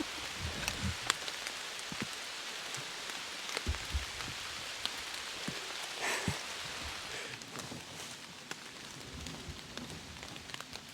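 Steady rain hiss with scattered drop taps, and a few low thumps about four and six seconds in.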